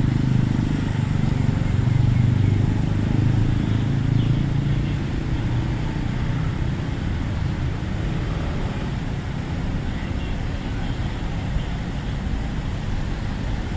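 Street traffic: a car's engine running close by, loudest in the first few seconds and then fading, over a steady hum of passing road traffic.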